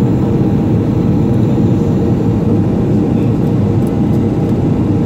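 Steady cabin noise of a jet airliner on its landing approach, heard inside the cabin: the engines and the rushing air make an even, deep rumble.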